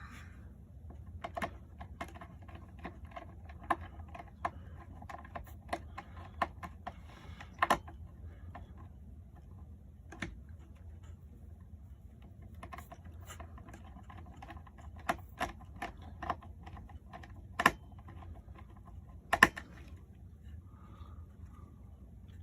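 Irregular small clicks and taps of hand tools and wires being handled while wiring a model railway control panel to a terminal block. A couple of the taps near the end are louder, and a steady low hum runs underneath.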